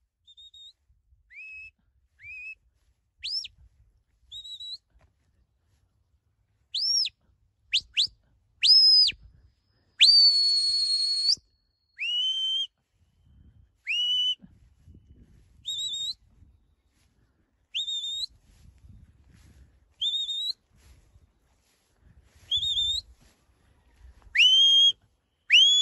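Handler's whistled commands to a working sheepdog: a string of short, sharp notes, many sliding up or down in pitch, with one long held note about ten seconds in and a quicker run of notes near the end.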